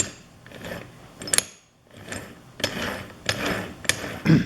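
Suzuki RM125 two-stroke gearbox, open on the bench, being turned and shifted by hand: gears whirring and rattling in spells, with sharp clicks as it indexes from third toward fourth gear. The box now shifts through the gears, its little tensioner spring back in place.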